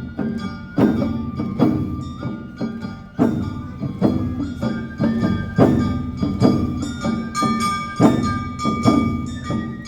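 Awa Odori dance music played live: drum strikes in a steady, brisk beat of a little more than one a second, with metal bell strikes and a flute holding high notes over them.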